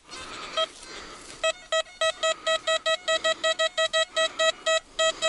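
Metal detector giving its target tone, signalling buried metal under the coil. There is one short beep, then from about a second and a half in a fast run of beeps, all at the same pitch, about five a second.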